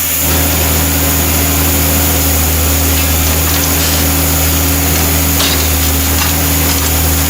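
An engine running steadily at a constant speed, with a few light clicks and knocks over it.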